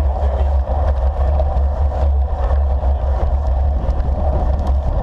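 Wind rushing over the microphone of a handlebar-mounted camera on a road bike at speed, a heavy, steady low rumble with no break.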